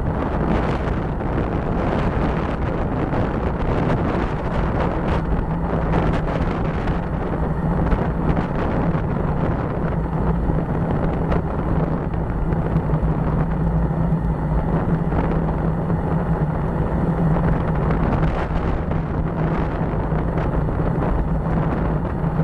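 Wind buffeting a bike-mounted camera's microphone while riding at speed, a steady rumbling noise, with a low steady drone that grows stronger about five seconds in.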